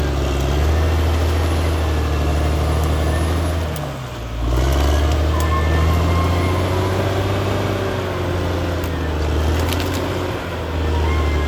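Caterpillar D6R XL bulldozer's diesel engine running, a steady low drone that dips briefly about four seconds in and then picks back up.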